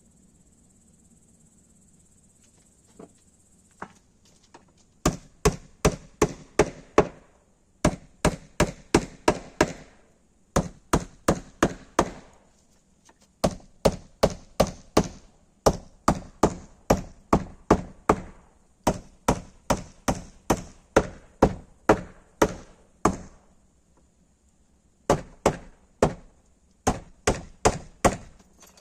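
Hammer driving small nails into an old wooden door: runs of sharp strikes, about three a second, with short pauses between runs. Insects chirr steadily in the background, heard alone for the first few seconds before the hammering starts.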